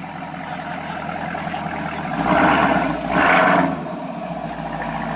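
Car with a loud exhaust idling with a steady rumble, then revved hard twice, about two and three seconds in.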